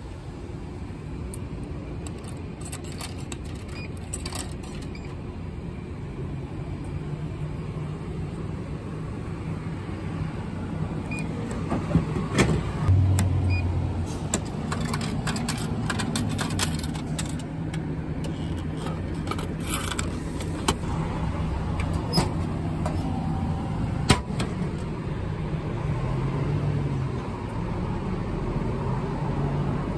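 A street drinks vending machine being used: coins clicking in early on, then a heavy thud about twelve seconds in as the can drops into the delivery tray. After the change-return lever is pressed, coins clatter out in a run of sharp clinks, all over a steady low hum.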